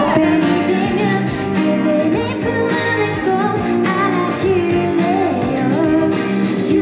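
A woman singing a pop song into a microphone over backing music.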